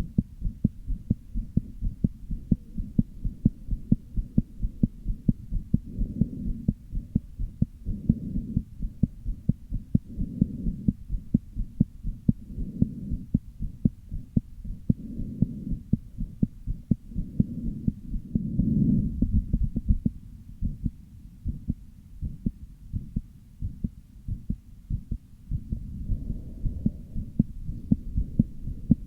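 A person's heartbeat heard close up: a quick, continuous run of low thuds, with a low rushing swell rising and falling every couple of seconds and strongest a little past the middle. The uploader takes it for a heart murmur with an arrhythmia.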